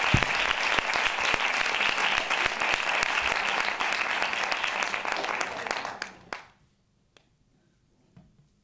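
Audience applause, a steady clatter of many hands clapping that dies away about six seconds in. A couple of faint clicks follow.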